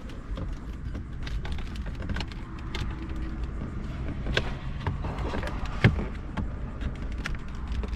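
Plastic dashboard trim panel being pried loose with a pick or flathead screwdriver: scattered small clicks and scrapes, with one sharper click about six seconds in, over a low steady hum.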